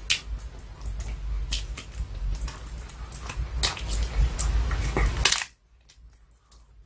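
Pomeranian chewing a duck gristle-bone treat: crunching with many sharp cracks, picked up close by an earphone microphone on the floor. About five and a half seconds in the sound turns much fainter, with only light clicks of chewing.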